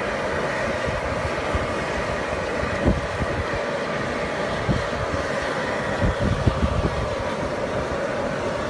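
Boiling mud pot steam vent rushing and rumbling steadily, with a few low thumps about three seconds in, near five seconds, and a short cluster around six to seven seconds.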